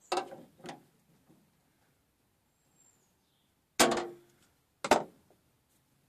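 Sharp metallic clacks from a VW T4 Transporter door lock mechanism being worked with a screwdriver. There are two near the start, then two louder ones about a second apart later on, the first of these ringing briefly.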